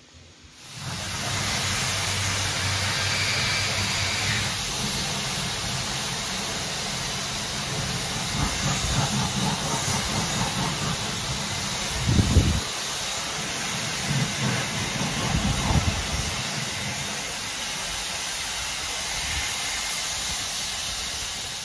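Steam locomotive No. 29 standing in the yard, giving off a loud, steady hiss of escaping steam. A low hum sits under the hiss for the first few seconds, and a few short low thuds come near the middle.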